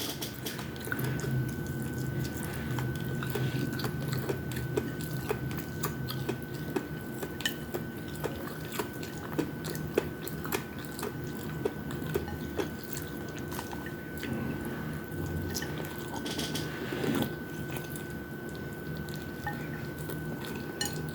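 Close-up eating sounds: chewing and biting on fried chicken wings and rice, with many small wet mouth clicks and smacks.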